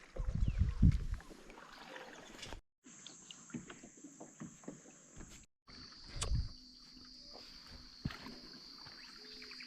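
Kayak paddles dipping and splashing in slow river water, with wind buffeting the microphone hard in the first second. A steady high-pitched whine runs through the later part.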